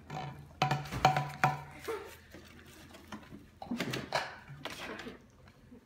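Bottles being handled and knocked against a stone countertop, with a cluster of sharp knocks about a second in and more around four seconds in.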